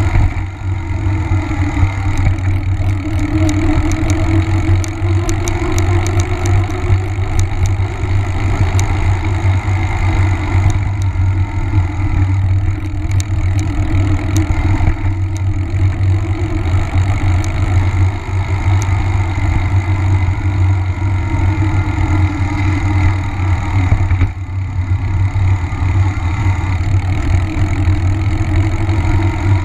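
Steady low rumble of wind on the microphone and a knobby mountain-bike tyre rolling on pavement, from a handlebar-mounted camera while riding.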